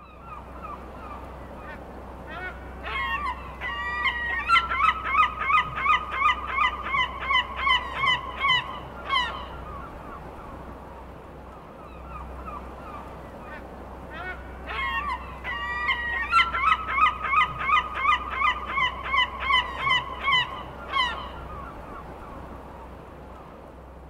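Gulls calling in two long runs of quick repeated notes, about three a second, each run building from a few scattered calls. A steady low background noise lies under the calls.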